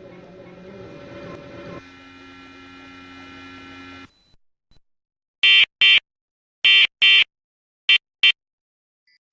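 Steady electronic hum that cuts off about four seconds in, then the Emergency Alert System end-of-message data bursts: three short pairs of loud, harsh digital screeches about a second apart, marking the end of the Amber Alert broadcast.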